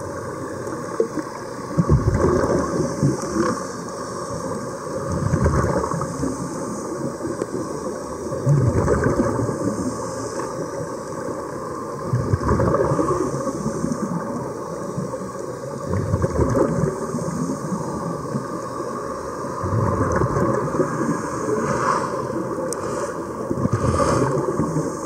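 Muffled underwater noise with irregular bubbling surges every few seconds as air streams out of sea-walking helmets.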